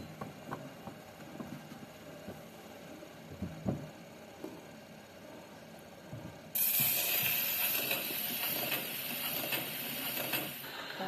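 Small clicks and knocks from a cabinet gramophone's tonearm and Electrola soundbox being handled while the turntable spins. About six and a half seconds in, the needle drops onto the shellac record and a loud, steady surface hiss with faint crackle starts, the run-in groove before the music.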